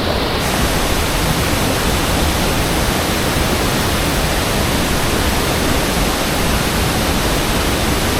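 Waterfall's steady rushing roar of falling water, loud and even throughout; its hiss turns brighter about half a second in.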